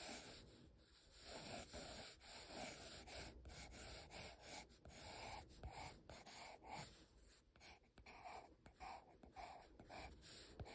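Soft scratching of an orange coloured pencil on sketchbook paper, drawn in a quick series of short curved strokes.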